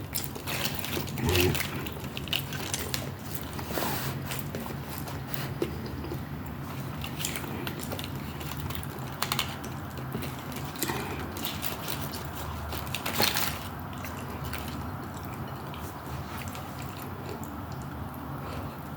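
A person chewing and eating, with scattered short clicks and a couple of louder sudden clatters, over a steady low hum.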